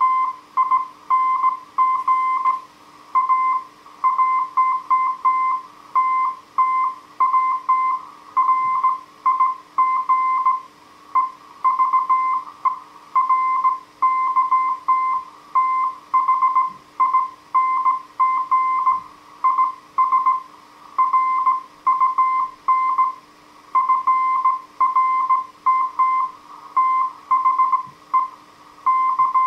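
Morse code (CW) tone from a Heathkit HW-101 transceiver: a single tone near 1 kHz keyed on and off in dots and dashes at slow speed, with short gaps between characters and words.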